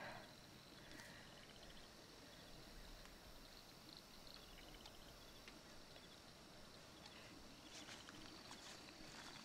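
Near silence: faint night-time outdoor ambience with insects chirping, from a TV episode's soundtrack.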